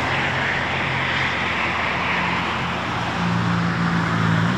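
Steady road-traffic noise of cars going by, with a low engine hum whose pitch shifts about three seconds in.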